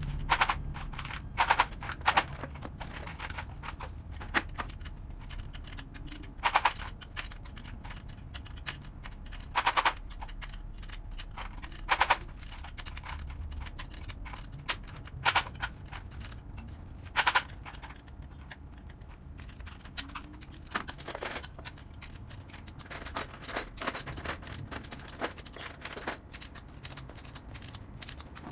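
Sharp metallic clicks and clanks of hand tools and fittings against a children's bicycle frame during assembly: single knocks every few seconds, then a quicker flurry of clicks near the end, over a steady low hum.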